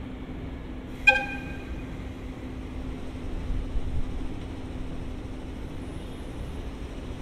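A single short, sharp horn toot about a second in, fading quickly, over the steady low rumble of a train.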